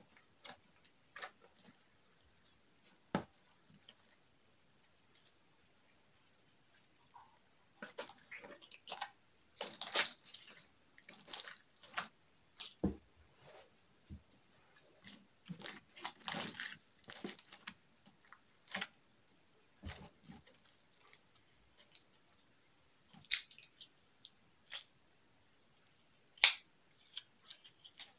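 Hands kneading and squeezing slime: irregular wet squelches, clicks and small pops. They are sparse at first, thickest through the middle, then scattered again with a few sharp clicks near the end.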